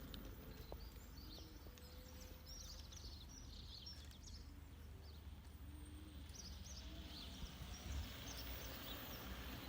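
Small birds chirping and twittering over a faint low rumble, with a faint whine slowly rising in pitch during the first few seconds.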